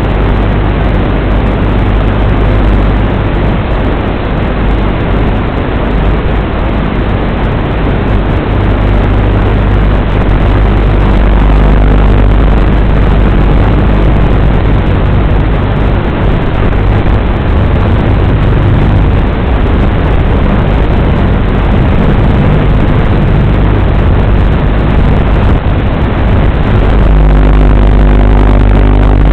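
WLToys 12418 RC car running, heard through its onboard FPV camera's low-quality microphone: a loud, steady rushing noise over a low hum that grows louder near the end.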